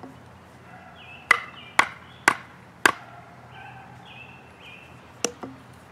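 Knife being batoned into a green-wood stick: a wooden baton strikes the knife's spine to drive the blade down toward the heartwood, cutting one arm of an X notch. Four sharp knocks about half a second apart, then two lighter taps near the end.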